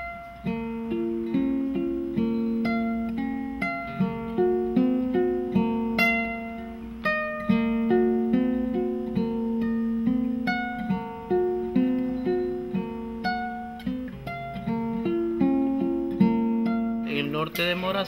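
Instrumental music on a guitar, picking a melody note by note over plucked bass notes.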